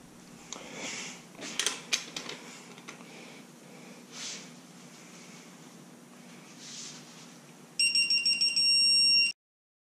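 Digital torque-angle wrench beeping: a rapid stuttering beep that settles into one steady tone and cuts off suddenly, the alarm that the LS head bolt has been turned through its set extra 90 degrees. Before it, a few light clicks and knocks of the wrench on the bolt.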